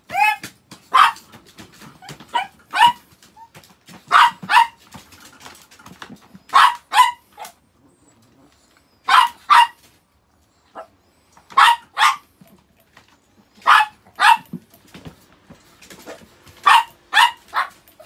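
Chihuahua barking in short, sharp, high yaps, mostly in pairs, a pair every two seconds or so, with a brief lull about eight seconds in.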